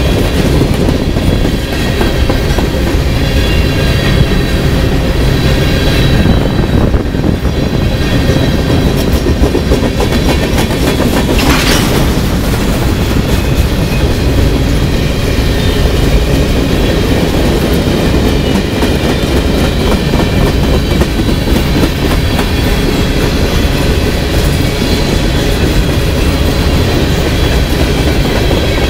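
Freight cars of a CSX train rolling past close by: a steady rumble and clickety-clack of steel wheels over the rail joints, with a faint high wheel squeal. A brief burst of high hiss comes about twelve seconds in.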